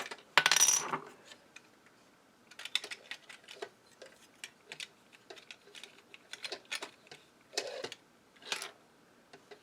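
Hard plastic action-figure parts clicking and tapping as they are handled and fitted together, in scattered small clicks, with a louder scraping rattle about half a second in.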